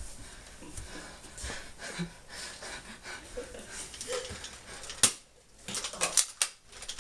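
Plastic clicks and knocks from Nerf blasters being handled and fired, over soft rustling of movement, with a sharp knock about five seconds in and a quick run of clicks just after.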